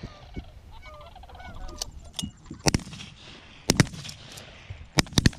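Canada geese honking overhead while shotguns fire several shots in the second half, the last ones in quick succession near the end.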